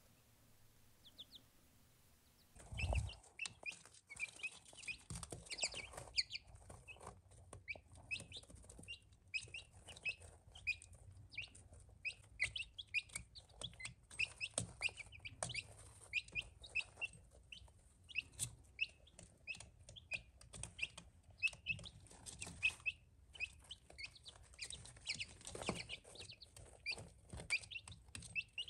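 Baby silkie chicks peeping: many short, high cheeps, several a second. They start about three seconds in, together with a single thump.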